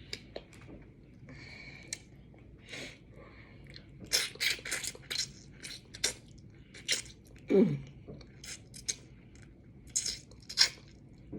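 Close-up eating sounds of crab: chewing, lip smacks and sharp little cracks and crunches, coming in quick clusters through the second half. A short hummed 'mm' about seven and a half seconds in.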